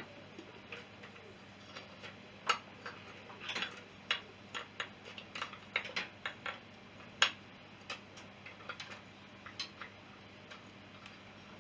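Hand tools and small metal parts clicking and tapping irregularly during work on a motorcycle engine, with two sharper knocks standing out, one a few seconds in and one about two thirds of the way through.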